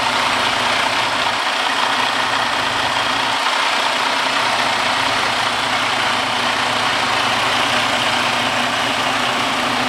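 A truck engine idling with a steady, unbroken noise.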